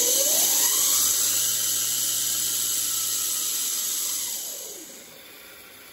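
Razor SX500 electric dirt bike on a 72-volt Electro & Company conversion kit, its motor and chain drive spinning the raised rear wheel at full throttle. A whine climbs for the first second, holds high over a loud rushing hiss, then winds down between about four and five seconds in as the wheel coasts.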